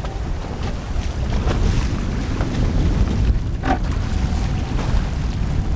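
Steady wind buffeting the microphone on an open boat over choppy water, with one brief, sharper sound a little past halfway.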